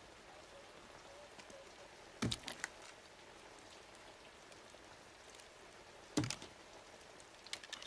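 Handgun being handled: two short bursts of sharp metallic clicks, about two seconds in and again about six seconds in, over a faint steady rain-like hiss. The clicks are likely a magazine seated and a slide racked, chambering a round.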